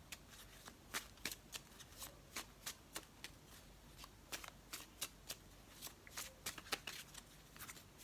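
A deck of oracle cards being shuffled by hand: a faint, irregular run of soft card slaps and flicks, a few a second.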